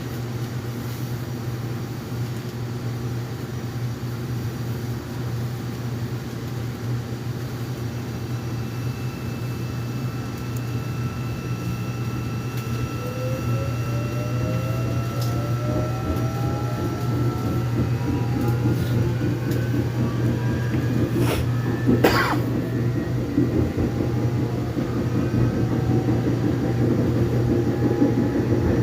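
Inside a Korean commuter express subway car under way: a steady low rumble of the train on the rails. From about halfway through, the traction motors whine, rising in pitch as the train picks up speed. Two short sharp knocks come about three quarters of the way in.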